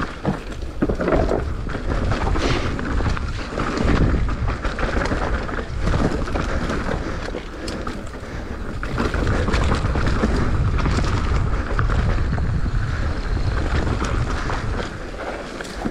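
Mountain bike riding downhill on a loose dirt trail, with wind buffeting the camera microphone and scattered knocks and rattles from the bike over bumps.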